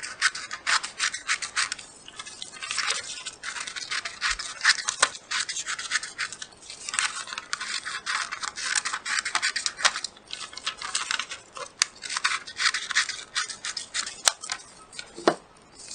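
Scissors cutting through a sheet of paper: a fast run of crisp snips, one stroke after another, broken by short pauses.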